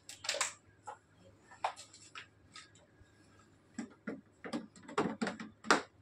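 Irregular clicks and knocks of hard plastic parts being handled and fitted onto a children's ride-on electric jeep, sparse at first and coming thicker and louder in the second half.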